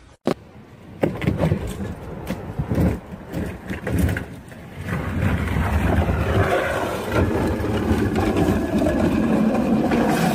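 A few knocks, then from about halfway a steady, loud rumbling scrape as an armchair carrying a person slides down an asphalt driveway.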